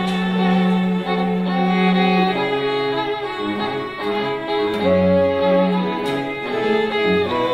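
String ensemble playing the bride's processional: violins carry a melody of long held notes over a low cello line.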